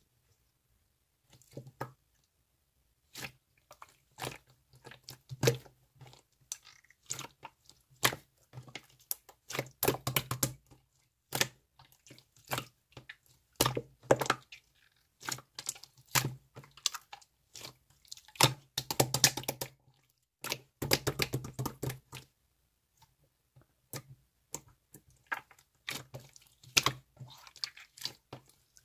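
Slime being squished and pressed by hand, giving irregular sticky clicks and crackling pops, with denser runs of crackles at a few points.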